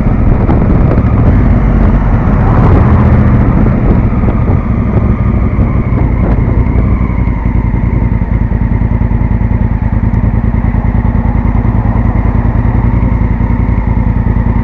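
Honda Africa Twin CRF1000L's parallel-twin engine as the motorcycle slows to a stop, then idling with a steady, even beat from about five seconds in.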